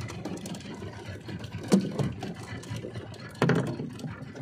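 Small fishing boat's engine running steadily at trolling speed, with a few sharp knocks on the boat: two close together about a second and a half in and a louder one near three and a half seconds.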